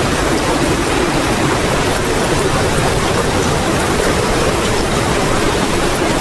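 Torrential rain falling steadily, a dense even hiss that does not let up.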